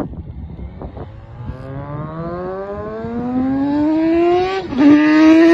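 Crighton CR700W's twin-rotor rotary engine accelerating hard as the motorcycle comes closer, rising steadily in pitch and growing louder. Near the end the pitch drops briefly for an upshift, then climbs again.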